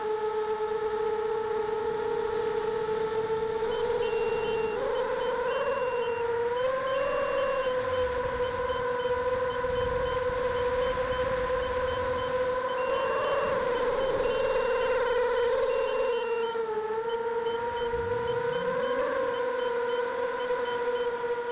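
Multirotor drone's motors and propellers giving a steady whine, its pitch rising briefly several times as the throttle changes in flight.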